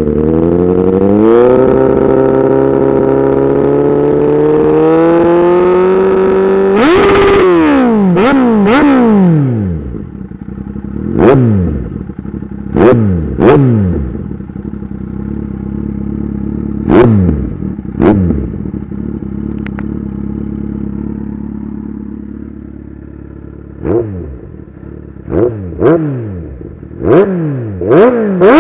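Kawasaki Z800 inline-four engine revving through an aftermarket exhaust. It is held at high revs and slowly climbing for about seven seconds, then drops back to idle. A series of quick throttle blips follows, each one falling straight back to idle.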